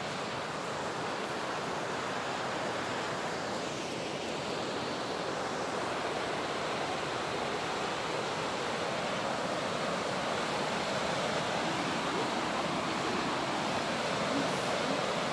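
Fast-flowing river rushing steadily, growing gradually louder.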